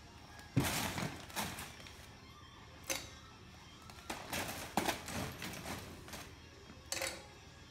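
Quiet background music, broken by about six light, scattered knocks and clinks.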